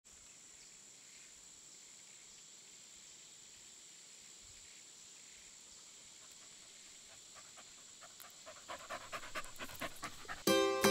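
A dog panting in quick, even breaths that grow louder over about three seconds, after near silence. A music chord comes in just at the end.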